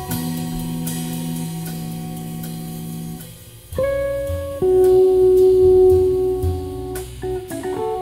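Live jazz trio of Hammond organ, guitar and drums playing, with the organ holding long steady chords and cymbal strokes over them. The band thins out a little past three seconds in, then comes back louder on a new held chord.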